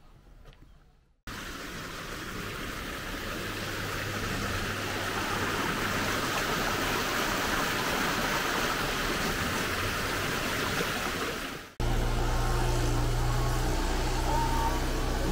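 Running water, a steady hiss that slowly grows louder. It is cut off suddenly near the end by a steady low hum like an idling engine.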